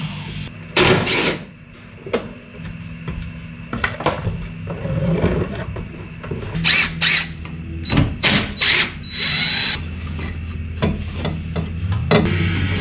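Cordless drill driver spinning in several short bursts, driving out the fasteners in a pickup's front wheel well and inner fender liner. One burst comes about a second in, and a cluster follows between about seven and ten seconds in.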